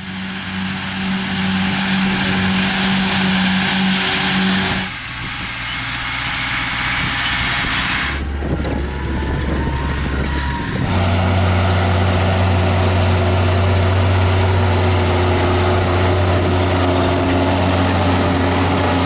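Farm machinery engines running steadily, in several clips that change abruptly about 5, 8 and 11 seconds in. The last and longest is a Massey Ferguson RB 4150V round baler working behind a tractor, with a steady low hum.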